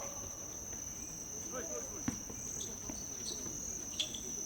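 Steady high-pitched insect trill running on without a break, with two sharp knocks about two and four seconds in.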